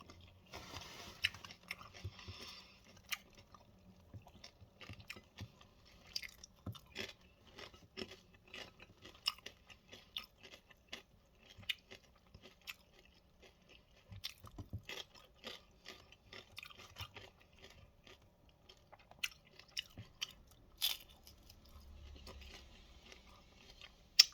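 Close-up crunching and chewing of tortilla-chip nachos topped with melted cheddar and salsa, in irregular crisp crackles between bites.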